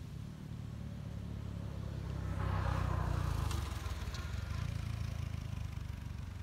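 An engine running nearby, growing louder to a peak about halfway through and then easing off, like a motor vehicle passing by.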